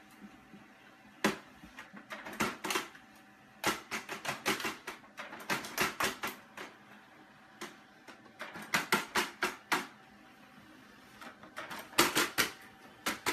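A laser printer feeding out pages, with irregular bursts of sharp clicks and clacks of its mechanism and the paper, while a cat paws at the sheets as they come out.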